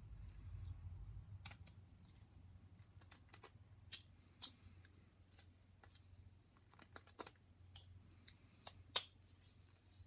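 Carving knife whittling a small wooden figure: faint, irregular snicks and clicks as the blade cuts small chips from the wood, with one sharper click about nine seconds in. A low rumble runs under the first second or so.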